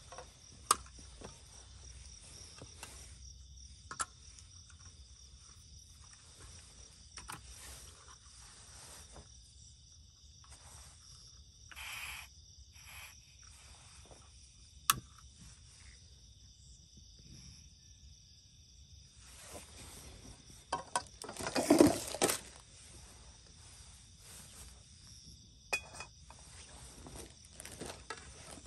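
Crickets chirping steadily, with scattered clicks and knocks from a portable butane camping stove being handled and its gas canister fitted. About two-thirds of the way through comes a louder clatter of metal as a steel wok is set on the stove.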